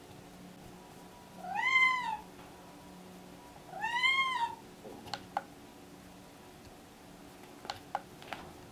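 Pregnant Scottish Fold cat in pre-labor meowing twice, each meow rising then falling in pitch. A few light clicks follow.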